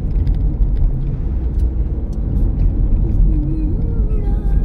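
Steady low rumble of a vehicle travelling along a road, with road and wind noise heard from on board.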